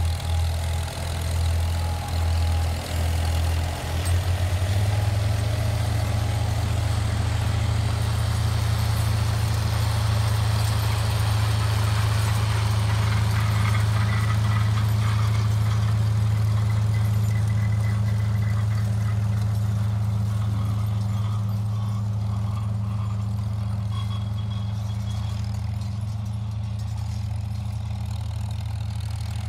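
Farmall 450 tractor's four-cylinder engine working under load while pulling a grain drill: uneven and pulsing for the first few seconds, then a steady drone that gets slightly quieter after about twenty seconds as the tractor moves away.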